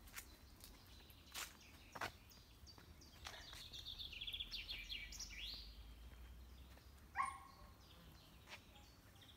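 Songbirds chirping and singing faintly. One longer falling trill, ending in a quick upturn, comes in the middle, and a sharp call sounds near the end, over a low steady rumble.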